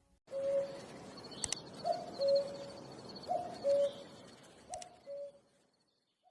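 A bird cooing in a repeated two-note phrase, a short higher note then a longer lower one, about every second and a half, with a few faint clicks.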